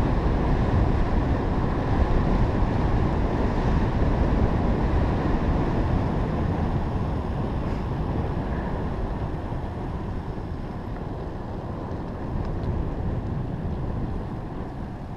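Wind rushing over the microphone of a bicycle-mounted camera, with the rumble of the bike rolling on asphalt, a steady rushing noise that grows gradually quieter in the second half as the bike slows.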